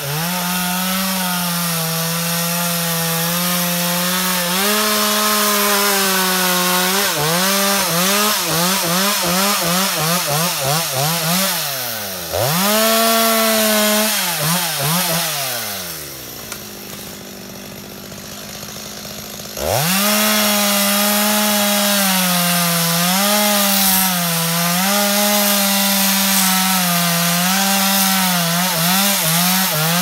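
Two-stroke chainsaw cutting up tree trunks and branches, its engine pitch dipping and climbing again and again as the chain bites into the wood. Midway it drops back to a quieter idle for about three seconds, then revs up again and carries on cutting.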